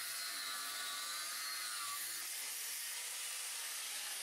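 Angle grinder with a cutting disc slicing through a strip of mild steel clamped in a vise: a steady high whine over a harsh grinding hiss.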